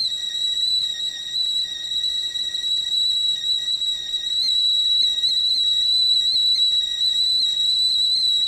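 Kettle whistling at the boil: one steady, high-pitched whistle that wavers slightly in pitch.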